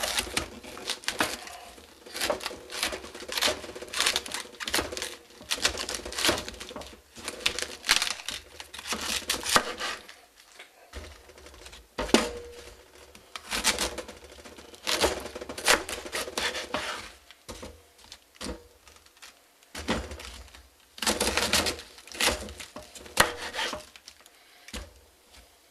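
Kitchen knife cutting a head of red cabbage into quarters on a plastic cutting board: a long run of crisp, irregular crunches and cracks, in clusters with short pauses between cuts.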